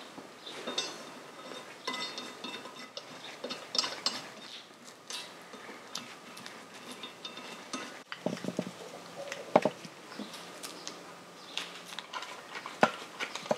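Light metallic clinks and taps of small bolts and fittings being handled and fitted by hand into polished aluminium motorcycle fork yokes, with a few brief metal rings and a louder run of knocks past the middle.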